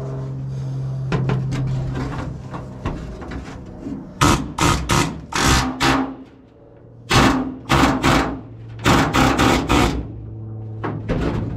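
Pneumatic air hammer with a chisel bit driving into spot welds on a steel cab floor to free the seat platform channel, in short bursts of a fraction of a second each, in clusters from about four seconds in. A steady low hum runs underneath.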